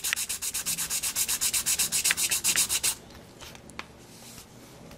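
Sandpaper rubbed back and forth on the edge of a clear plastic model-kit windscreen, in quick strokes about eight a second, smoothing down the leftover nub from the sprue. The sanding stops about three seconds in, leaving a few faint handling clicks.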